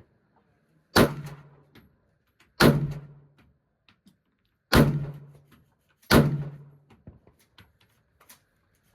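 Four single gunshots from a firearm, fired about one and a half to two seconds apart, each followed by a short echoing tail, with faint clicks in between.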